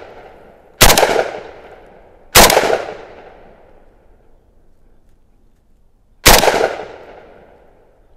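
Norinco NHM-91 semi-automatic rifle in 7.62x39 firing three single shots, about 1.5 s and then 4 s apart. Each shot has a long echoing tail.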